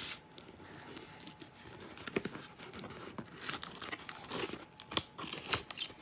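Clear packing tape being picked at and torn off a cardboard shipping box, with scratching, crinkling and sharp clicks in irregular bursts, heaviest in the second half.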